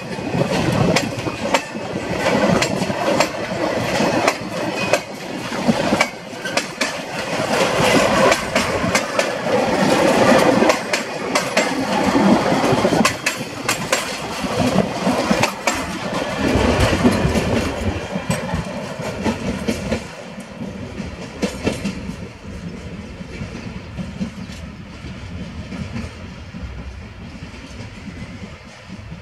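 Container freight train's loaded flat wagons rolling past, wheels clicking over the rail joints over a steady rumble. About twenty seconds in, the last wagons go by and the sound drops to a fainter rumble as the train moves away.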